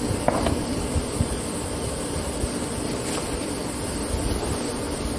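Wind buffeting the microphone: a steady rushing noise with uneven low gusts, plus a couple of faint clicks.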